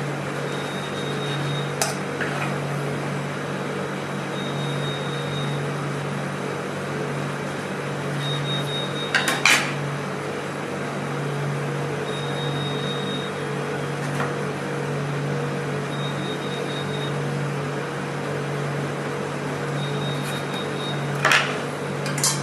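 Steady hum of kitchen equipment, with a handful of sharp clinks and knocks of dishes and utensils: one about two seconds in, a quick double about halfway through, and two more near the end.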